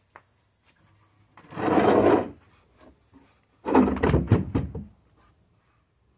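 Two scraping sounds of wooden boards being handled, each under a second long and about two seconds apart.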